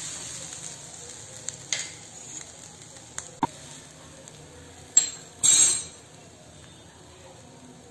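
Ground coconut-and-chilli masala sizzling softly in hot oil in a nonstick kadai as it is stirred with a steel spoon, with a few light clinks of the spoon on the pan. About five seconds in there is a sharp tap and then a brief louder hiss as asafoetida is tipped in from a small cup.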